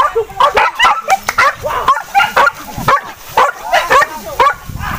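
Hunting dogs barking and yelping in quick succession, about three or four short calls a second, as they give chase to a wild boar.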